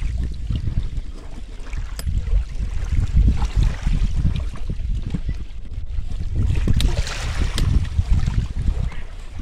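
Wind buffeting the microphone and small waves lapping in the shallows, with a few light metal clicks as the small outboard motor's transom clamp screw is turned.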